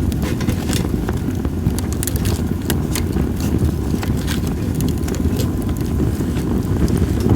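Campfire of split sawtooth oak (kunugi) logs crackling, with frequent sharp pops and snaps over a steady low rumble of wind.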